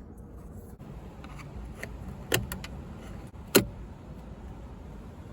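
Side-mirror wiring connector being worked loose and unplugged: a few light plastic clicks, then two sharp, loud clicks about a second and a quarter apart.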